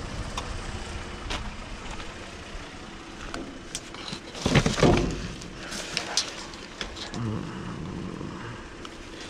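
Junk being picked through by hand: scattered clicks and knocks over a steady low rumble, with a louder scraping rustle about four and a half seconds in.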